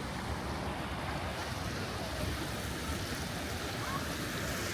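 Steady ocean surf washing onto a beach, with wind rumbling on the microphone.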